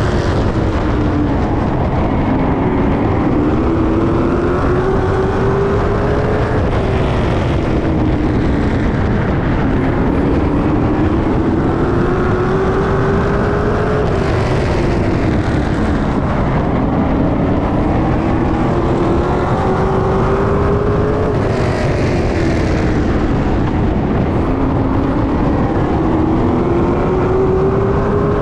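Late model stock cars racing on a short oval track: loud V8 engines running hard, the engine pitch climbing for about five seconds and dropping for two to three, again and again, as the cars throttle up on the straights and lift for the turns.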